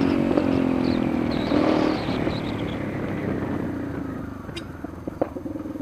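Yamaha Lander 250's single-cylinder engine dropping revs as the bike slows, its pitch and loudness falling over about four seconds, then settling into a steady, evenly pulsing idle near the end, with a couple of small clicks.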